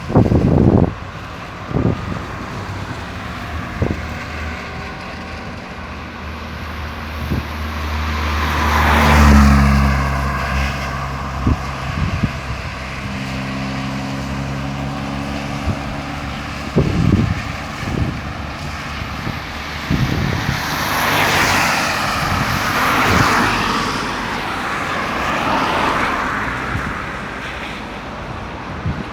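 Road traffic passing: a heavy vehicle's engine rises to its loudest about nine seconds in as it goes by, and more cars pass later, with a few short thumps in between.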